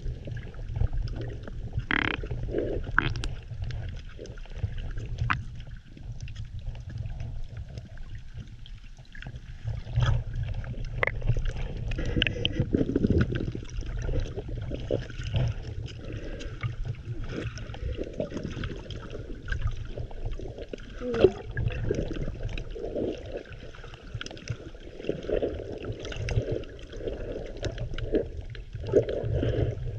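Muffled, gurgling water sloshing over a GoPro camera held just under the surface, with a steady low rumble, uneven swells and scattered small clicks and knocks.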